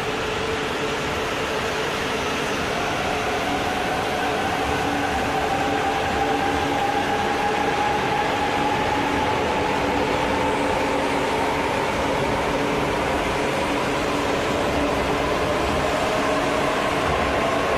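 E4 series 'MAX' double-decker Shinkansen pulling out and gathering speed. Its traction motors whine in several tones that rise slowly in pitch over a steady rumble of wheels on rail.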